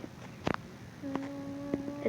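A single sharp tap about half a second in, then a person humming one steady note, with a couple of faint ticks.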